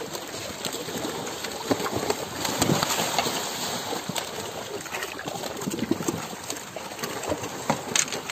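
Crocodiles shifting and scrabbling against one another on the ground, with irregular knocks and clicks, a sharper one near the end.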